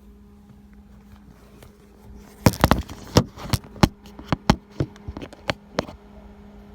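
A quick, irregular run of about a dozen sharp clicks or taps over roughly three seconds, starting about two and a half seconds in, over a steady low hum.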